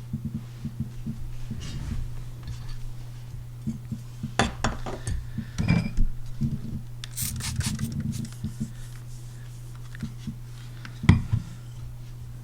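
Steel knife blade rubbing across a sharpening stone in short strokes, with scattered clicks and a few sharper clinks as blade and stone are handled; one sharp knock comes near the end. A low steady hum runs underneath.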